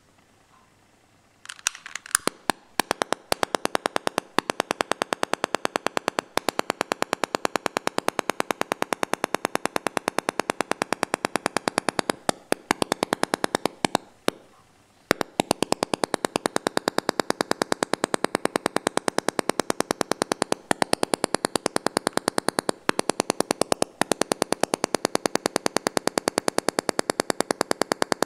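Homemade HHO (oxy-hydrogen) generator and torch rig making a rapid, even run of sharp pops or clicks, many a second, with a short pause a little past halfway.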